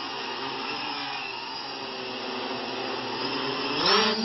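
Hexacopter's six electric motors and propellers whirring steadily, then rising sharply in pitch and loudness near the end as the motors speed up and the craft climbs.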